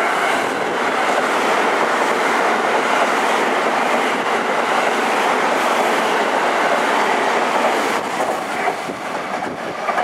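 Electric multiple-unit passenger train running through the station at speed: a steady loud rush of wheels on rail with a clatter of wheels over rail joints, dying down about eight seconds in as the last cars go by.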